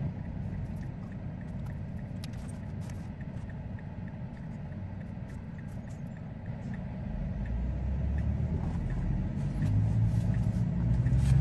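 Low rumble of traffic heard from inside a Tesla's cabin, with a garbage truck's diesel engine running alongside as it pulls away. The rumble grows louder about seven seconds in as traffic and the car move off.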